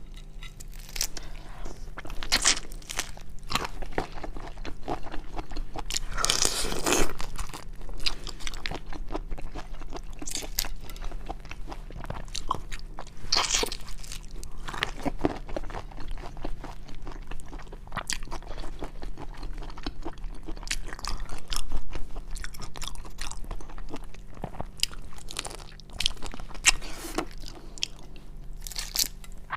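Close-miked eating of seafood: repeated crunchy bites and wet chewing at an uneven pace, with a louder crunch about seven seconds in.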